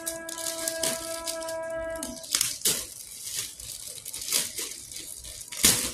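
Scissors snipping and tearing through a black plastic parcel wrapping, with the plastic crinkling as it is handled; a run of sharp snips and rustles, the loudest near the end.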